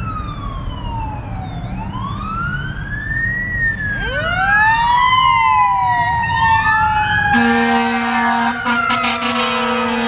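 Fire engine siren wailing up and down, with a second wailing siren overlapping from about four seconds in. From about seven seconds in, the fire truck's steady blaring horn sounds over the sirens.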